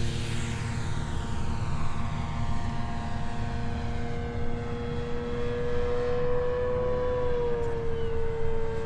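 Electric motor and propeller of an FMS 1700mm P-51 RC plane in flight, a steady whine whose pitch drops slightly about three-quarters of the way through.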